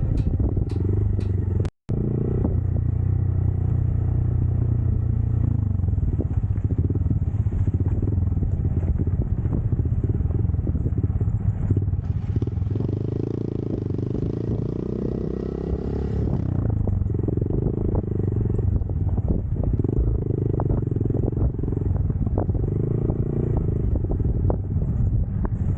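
Motorcycle engine running steadily while riding off road, with clattering knocks from the bike over rough ground. Guitar music plays for the first two seconds, then cuts off.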